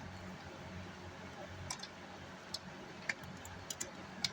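A few scattered light clicks and taps from hands and a tool working on the amplifier's case while it is taken apart, over a low steady background hum.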